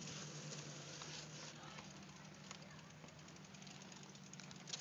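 Faint outdoor background: a steady low hum with light, rapid ticking over it.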